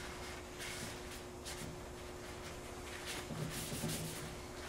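A cloth rag wiping and rubbing along a shotgun barrel in several soft strokes, over a faint steady hum.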